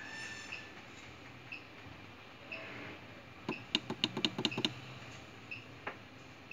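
Quick run of about eight sharp clicks a little past three seconds in, from the + key being pressed on the front-panel keypad of a BMS DIGI IFT-Pro+ interferential therapy unit. A faint short high beep from the unit sounds about once a second.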